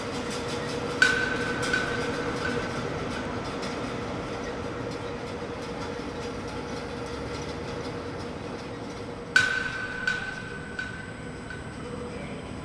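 TGV Lyria train at a station platform: steady rail running noise, with two sharp metallic clanks, one about a second in and one near the end, each leaving a ringing tone that fades over a second or two. A faint high whine comes in near the end.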